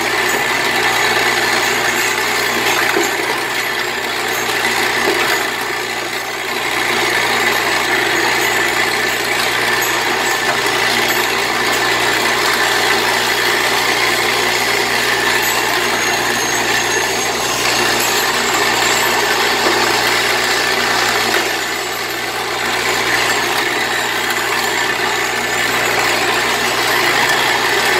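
Vibratory bowl feeder running, its metal bowl buzzing with a steady hum while spikes rattle and clatter along the spiral track. It goes briefly quieter twice.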